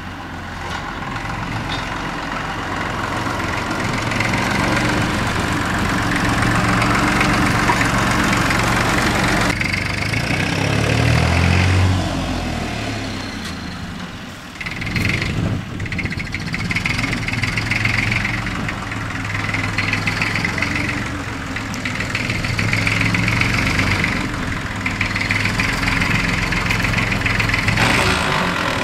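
Small vintage tractor engine running steadily while the tractor tows a trailer, its note swinging up and down briefly a little before halfway.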